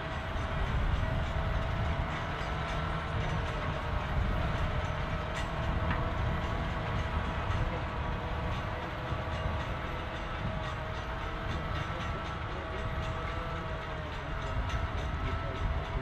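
New Holland tractor's diesel engine running under load as it pulls a Maschio tillage implement through the soil: a steady low rumble with a constant whine over it.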